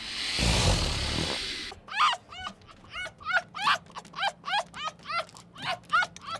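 A loud burst of noise for the first second or so, then a puppy yipping rapidly, short high yelps falling in pitch, about three a second.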